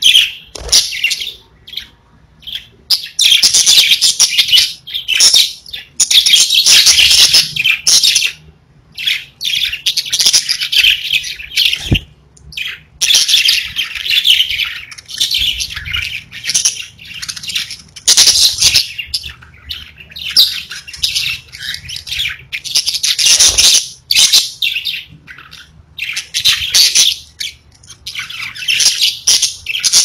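Pet budgerigars chirping in rapid, high-pitched bursts, one after another with short pauses between them, broken by a couple of sharp clicks.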